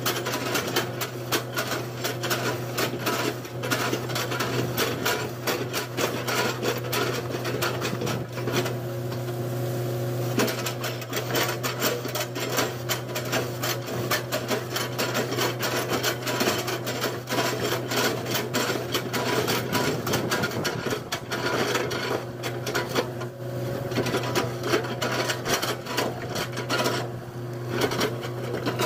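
Excavator running: a steady engine hum under constant rapid clattering and knocking.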